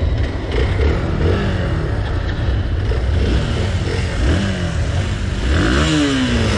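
Motorcycle engines revving and easing off, their pitch rising and falling in sweeps, with more than one bike running at once.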